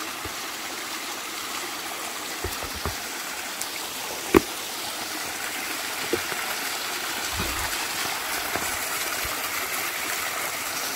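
Small mountain stream trickling and splashing down a little cascade over mossy rocks, a steady water sound that grows slightly louder in the second half. A few light knocks, the sharpest a little before halfway.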